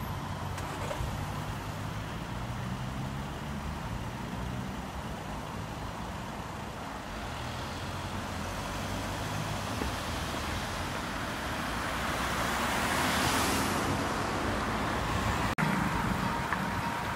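Road traffic at a level crossing: car engines idling and pulling away, with one vehicle passing close about thirteen seconds in. Near the end, a level-crossing warning signal rings steadily over idling traffic.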